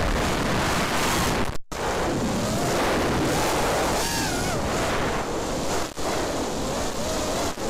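Armattan F1-4B FPV quadcopter's Cobra 2204 2300kv motors on 4-inch tri-blade props, whining and rising and falling in pitch with the throttle, under a steady rush of prop wash and wind on the onboard camera's microphone. The audio cuts out for a moment about one and a half seconds in.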